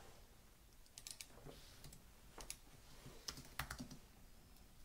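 Faint typing on a computer keyboard: a few scattered, irregular keystrokes as a word in a text field is deleted and retyped.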